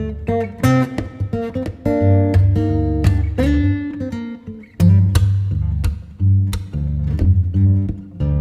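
Background music led by plucked acoustic guitar, with a strong bass line.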